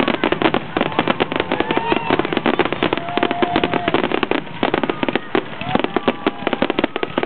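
Fireworks finale: a dense, unbroken barrage of aerial shell bursts and crackle, many bangs a second.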